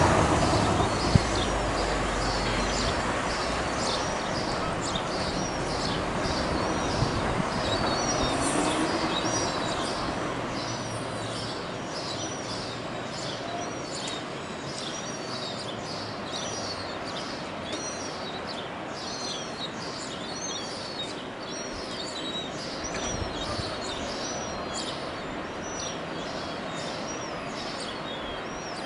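Yellow-legged gull chicks peeping over and over, thin high calls about two a second. A broad rumbling noise underneath fades away over the first ten seconds or so.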